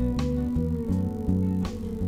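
Instrumental background music, with plucked guitar-like notes over a changing bass line and a sharp beat roughly every second and a half.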